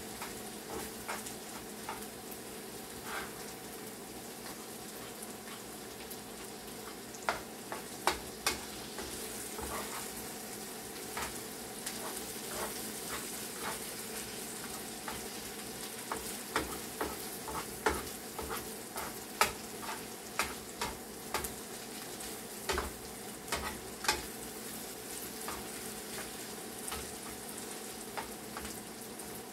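Shredded chicken frying in oil in a pan with a steady sizzle, while a utensil stirs it, knocking sharply against the pan again and again.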